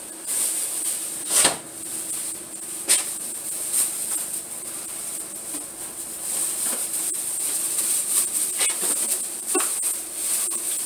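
Thin plastic grocery bags rustling and crinkling as they are handled and emptied, with a couple of sharp knocks in the first three seconds.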